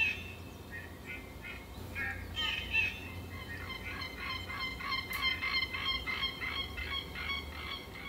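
A rapid series of short, bird-like animal calls, several a second and growing denser after about two seconds, laid on as the imagined voice of an armored ankylosaur, over a steady low rumble.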